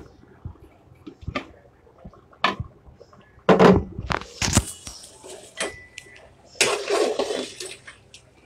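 Cookware clatter: a pot lid and a spatula knocking against a metal cooking pot, loudest in a cluster of knocks about three and a half seconds in. Near the end comes a stretch of stirring and scraping through thick, simmering goat-trotter nihari.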